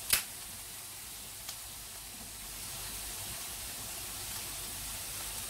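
Sliced onions and curry leaves sizzling steadily in hot oil in a pan, with one sharp click right at the start.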